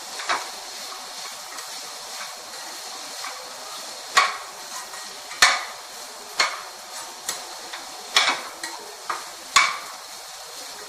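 Mixed vegetables frying with a steady sizzle in a kadai, while a spoon is knocked and scraped against the pan about eight times as they are stirred.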